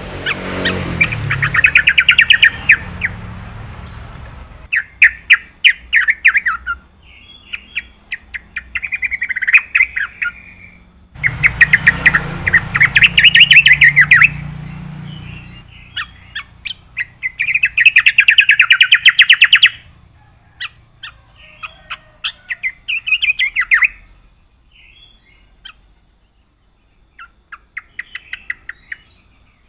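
Yellow-vented bulbul (trucukan) singing: repeated bursts of rapid chattering notes, each phrase lasting a second or two with short pauses between, growing sparser near the end.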